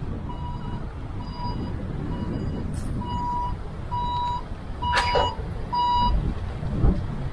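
A vehicle's reversing alarm beeping at one steady high pitch, short beeps about two a second at first, then longer beeps about one a second, stopping about six seconds in, over a low engine rumble. A sharp knock sounds about five seconds in.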